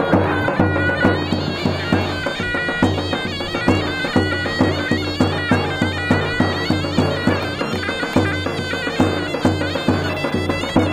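Instrumental Kurdish folk dance music: a loud, reedy wind melody over a steady, quick drum beat.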